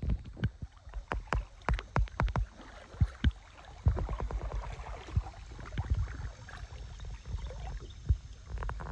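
Paddling a tandem sit-on-top kayak on calm water: irregular paddle strokes and sharp knocks and clicks around the hull, coming several a second in the first few seconds and more spread out after, over a low rumble.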